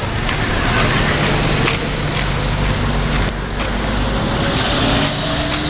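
Steady outdoor traffic noise, loud and unbroken, with a low hum underneath.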